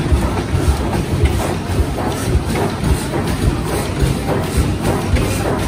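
Vintage stationary engines, among them a Blackstone, running together: a steady, uneven beat of low thuds several times a second.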